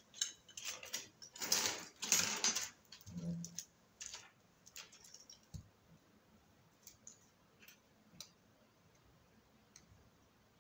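Handling noise from an Oukitel WP6 rugged phone on a table: its plastic-and-rubber body scraping and rustling under the hands for about four seconds, then scattered light clicks and taps.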